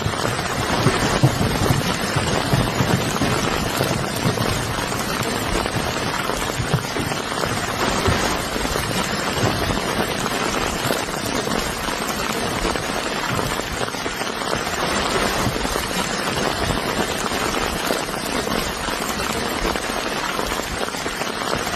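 Steady rain-like hiss with a light pattering crackle, holding level throughout.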